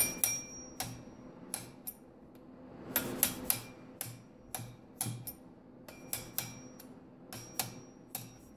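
Light hammer taps on a steel punch set against the edge of a Husqvarna 450 chainsaw's reverse-threaded clutch, snugging the clutch tight: about twenty sharp metallic clicks in irregular clusters, some with a brief ring.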